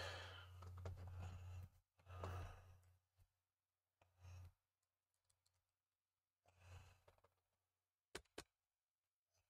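Near silence broken by soft sighing breaths and faint handling rustles, then two quick light clicks a quarter of a second apart near the end.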